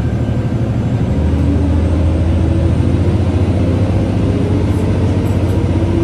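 KiHa 11 diesel railcar's engine running under power as the train gets under way, a steady low drone whose note rises slowly as it picks up speed.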